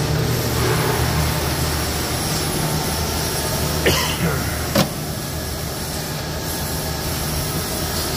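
Steady low hum of a fabrication shop, with two sharp plastic clacks about four and five seconds in as the hinged spool cover of a Fronius wire feeder is handled and shut.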